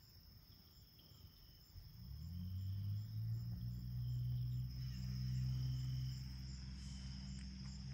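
Crickets chirring steadily in a high band. About two seconds in, a low steady mechanical drone comes in, rising slightly at first and then holding level, and it becomes the loudest sound.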